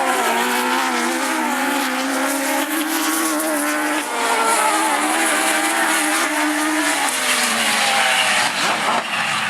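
Several autograss race car engines running hard together, their notes rising and falling as the cars accelerate and back off around the dirt track.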